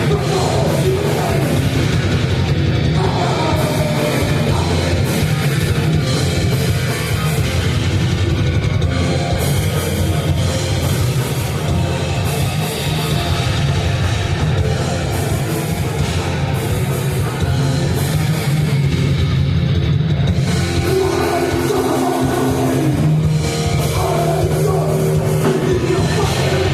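Heavy metal band playing live, with distorted electric guitars, bass and a drum kit, loud and dense throughout.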